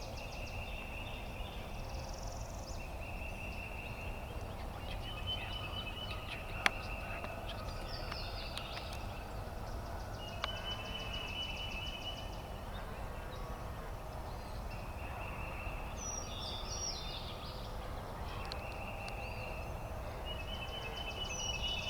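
Wild turkey calling near the decoys, with repeated high songbird trills about every few seconds and one sharp click about seven seconds in.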